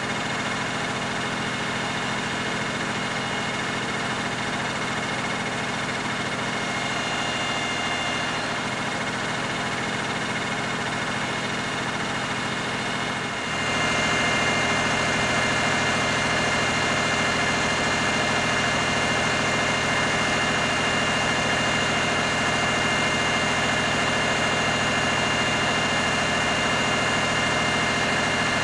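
Steady drone of engines running at idle from the rescue equipment: a portable hydraulic rescue power unit and a fire engine, with a few steady whining tones. The mix changes and gets louder about halfway through.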